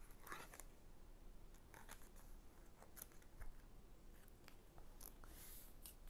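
Faint rustles and light taps of a board book's cardboard lift-the-flap pages being opened and handled, with a longer soft papery brush about five seconds in.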